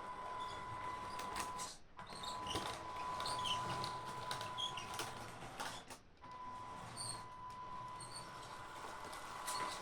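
Electric drive of a 3D-printed 1:16 scale RC half-track model running: a steady high whine from its cheap motor speed controller over the rattle of gears and tracks, with small plastic squeaks. The drive stops briefly twice, about two seconds in and about six seconds in.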